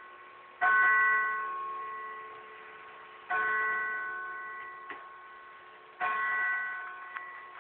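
Courthouse tower clock bell struck by the mechanical clock, three strokes about 2.7 s apart, each ringing out with several tones and slowly dying away.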